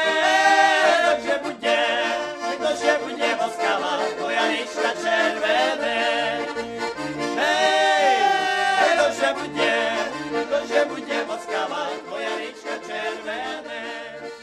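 Slovak folk tune played on accordion, with held melody notes over a steady bass pulse. It fades out near the end.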